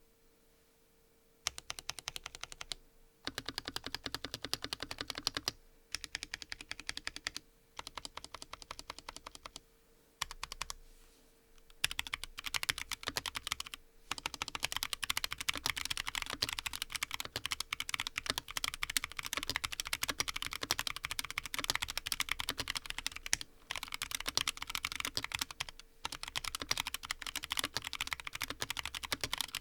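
Fast typing on a Frusta Fundamental custom mechanical keyboard with a brass plate and lubed Huano White Blue switches. At first the keystrokes come in short runs with brief pauses, then the typing turns into a steadier, near-continuous stream.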